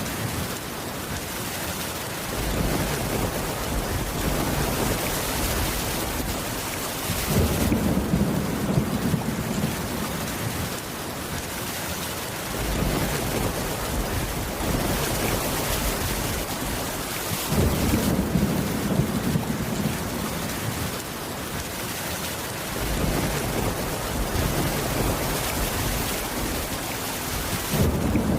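Steady rain, with a low thunder rumble that comes and goes in long, even swells.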